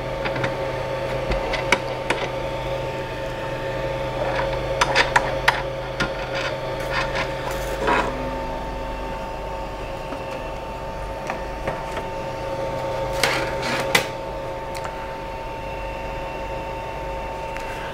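Plastic clicks, scrapes and knocks as the resin vat is unlatched and lifted out of a resin 3D printer and the build plate handled, over a steady hum and whine that runs throughout.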